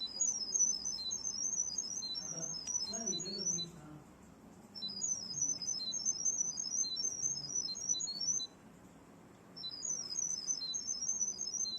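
Rapid high electronic chirping: strings of quick short tones hopping between a few fixed pitches, in three bursts of about three to four seconds with a pause of about a second between them.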